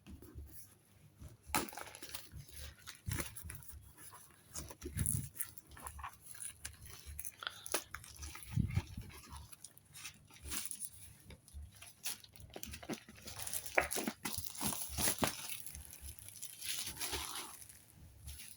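A calendar's wrapping being torn open and crinkled by hand: a long run of irregular rustles and crackles, with a few soft thuds of handling.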